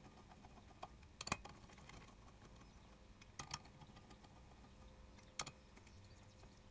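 Near silence broken by three small, sharp metallic clicks, about a second in, around the middle and a little before the end: a 14 mm socket on an extension bar seating on and turning the 12-point bolts that hold the brake disc to the hub.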